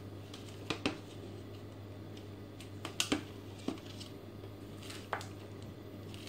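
Plastic food packaging being handled: a clear plastic cup of cherry tomatoes and a film-wrapped tray of cucumbers knocked and shifted, giving a few sharp clicks and taps over a steady low hum.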